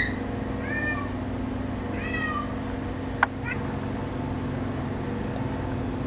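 A cat making short meows that fall in pitch, two in the first two and a half seconds, then a sharp click about three seconds in followed by a faint chirp.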